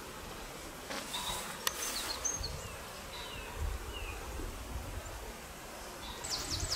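Outdoor ambience with small birds chirping: scattered short, high, falling chirps and a quick burst of chirps near the end, over a low rumble.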